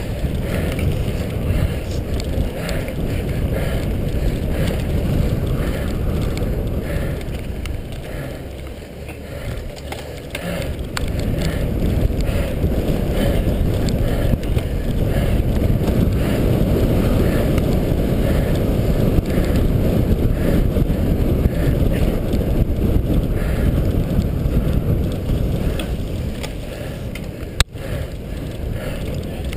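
Wind buffeting the microphone over the rumble and rattle of a cyclocross bike riding fast over bumpy grass and dirt, the noise easing for a few seconds before building again. A short sharp break cuts through it near the end.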